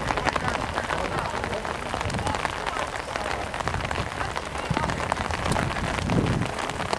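A steady, dense patter of many small irregular ticks over a noisy hiss, like rain falling on a surface close to the microphone, with a dull low thump about six seconds in.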